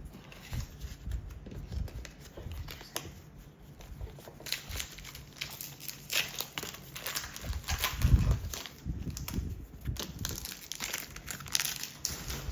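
Foil wrapper of a Pokémon card booster pack crinkling and tearing as it is handled and ripped open, the crackle growing busier partway through, with a dull low thump about eight seconds in.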